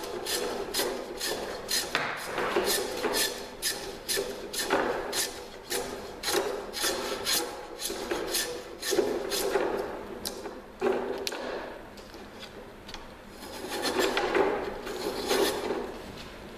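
Small block plane shaving the tapered end of a thin wood strip: quick scraping strokes about three a second for the first half, then a few longer, slower passes. The sharp blade gives the singing sound of a well-honed plane.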